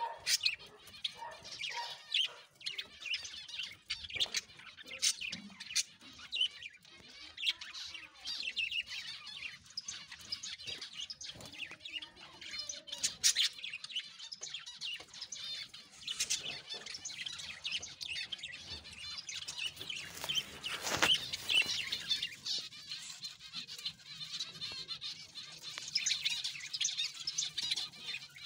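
Java sparrows (Java finches) chirping: many short, high chirps overlapping one another, with sharp clicking notes throughout.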